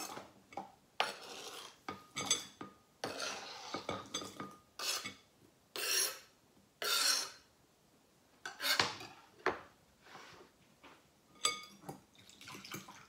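Knife scraping diced fresh mango off a cutting board into a glass mixing bowl, in a run of separate scrapes and clinks of metal and board against the glass, with a spoon stirring in the bowl near the end.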